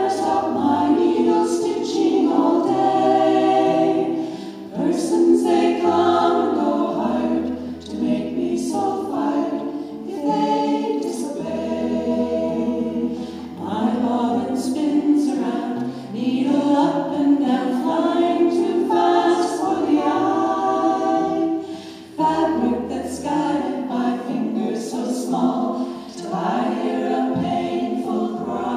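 A women's vocal group of six singing a song in close harmony, with an acoustic guitar accompanying.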